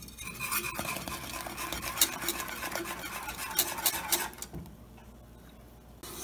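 Wire whisk beating milk and cream in a metal saucepan, its tines rattling and scraping against the pan with many sharp clicks, then stopping about four seconds in.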